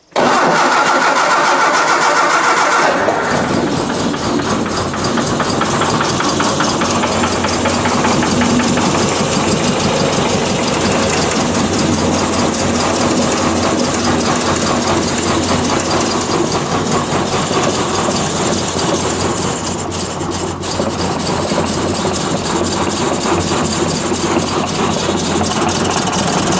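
1966 Triumph Spitfire's 1147cc four-cylinder engine is cranked over and catches about three seconds in, then runs badly, with a sluggish, hesitating, stuttering idle. The owner suspects ignition, since valve clearances and timing check out.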